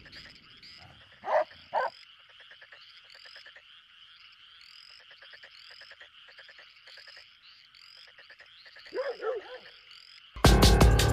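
Faint chorus of calling animals: frog-like croaks in short pulsed runs and repeated high chirps over a steady insect-like drone, with two louder calls about a second in and a brief wavering call near the end. Electronic music with a heavy beat cuts in suddenly just before the end.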